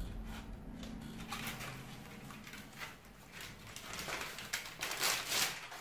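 Self-adhesive sandpaper being peeled from its backing and pressed and smoothed by hand onto a wooden longboard sander: scratchy paper rustling and rubbing, loudest near the end.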